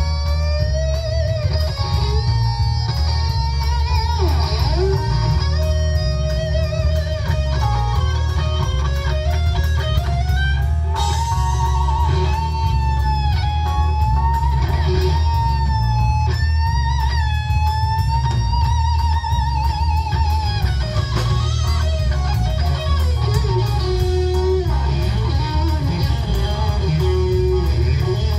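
Live rock band playing, with a lead electric guitar carrying the melody in long held, bent notes with vibrato over bass guitar and drums.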